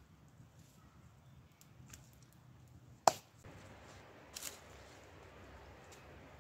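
A single sharp knock about three seconds in, then a shorter scraping crackle about a second later: a wooden post being knocked and worked in among the stones of a dry-stone wall.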